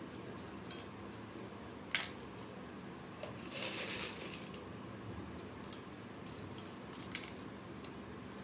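Crunchy farsan (sev, boondi and peanuts) dropped onto a bowl of misal and its plate: a sharp click about two seconds in, a brief rustle a little later, and scattered small ticks, over a steady low hum.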